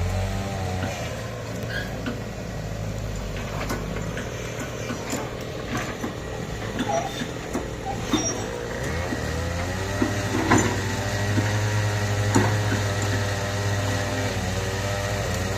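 Excavator diesel engine running under changing load, its pitch rising and falling, with scattered knocks and clanks.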